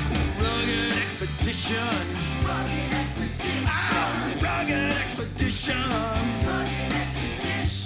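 Rock music with a sung vocal over guitar and a steady drum beat.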